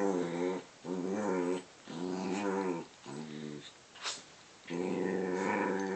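Small dogs play-growling as they wrestle, about five drawn-out growls with short pauses between them.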